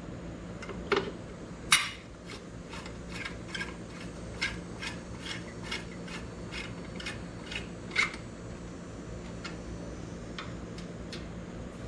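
Screwdriver backing out the screws of a headlight's chrome retaining ring, a run of light regular clicks about three a second, with a few louder sharp metal knocks, over a steady low hum.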